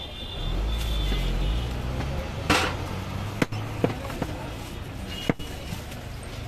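Heavy meat cleaver chopping through a goat leg on a wooden stump block: about five sharp, separate strikes from about two and a half seconds in. A low rumble fills the first couple of seconds.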